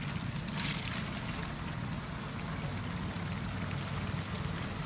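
Cut drumstick (moringa) pieces tipped from a bowl into a large aluminium pot of curry, tumbling in with a brief splashing rattle about half a second in, over a steady low rumble.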